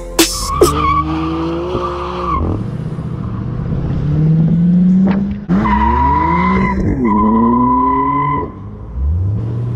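Car accelerating hard: the engine revs up again and again while the tyres squeal in about three bursts, each squeal a steady high tone, with another rev starting near the end.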